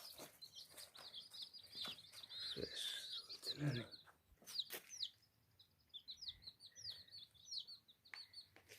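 Kadaknath chicks peeping: many short, high cheeps in quick succession, thinning briefly about four seconds in, with a few light knocks among them.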